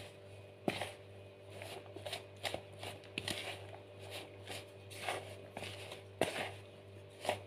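Dry glutinous rice flour and chopped vegetables being stirred and tossed by hand in a plastic bowl: soft, irregular rustling and scraping strokes.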